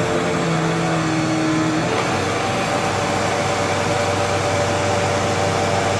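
Bagless upright vacuum cleaner running steadily, its motor whine shifting pitch about two seconds in as the load on it changes.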